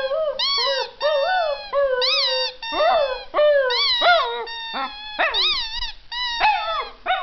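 Dachshund howling: a run of short, wavering howls that rise and fall in pitch, one after another with brief gaps.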